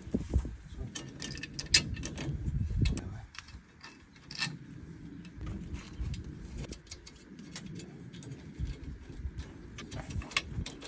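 Hand tools and metal parts being worked on a combine's conveyor chain: irregular metallic clicks and clinks with dull low knocks, as the repaired chain and its bolts are fitted back in place.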